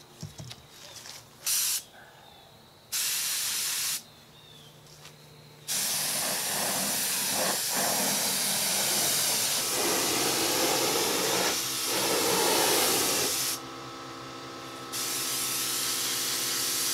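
Compressed-air paint spray gun hissing as its trigger is pulled, laying down a first coat of paint. It starts with short bursts, then runs in long steady passes, with a steady hum under the hiss near the end.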